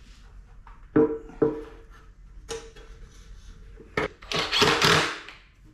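Hollow metal knocks from the ATC's metal gas tank being handled, four of them, each ringing briefly on the same tone, then about a second of rushing noise near the end.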